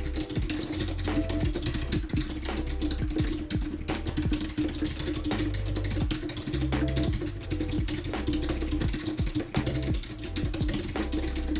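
Rapid typing on a computer keyboard, a fast, irregular stream of key clicks during a timed typing test, over background music with a steady bass line.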